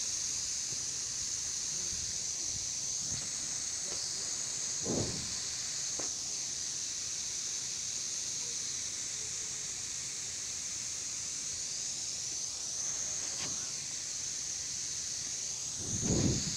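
Lawn sprinkler spray heads hissing steadily as they spray water over the grass, with a couple of dull thumps about five seconds in and near the end.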